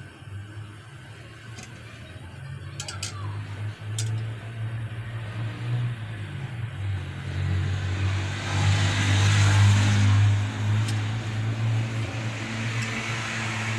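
Honey syrup heating in a pot on a gas stove, a low rumble under a hiss of simmering that grows louder about eight seconds in as the mixture starts to boil. A few light clinks come in the first four seconds.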